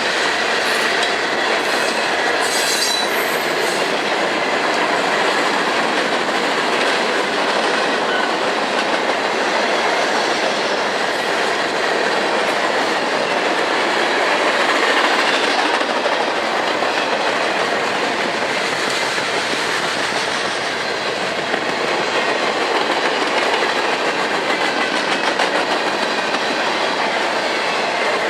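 Freight train cars rolling steadily past, wheels clattering over the rails with some wheel squeal.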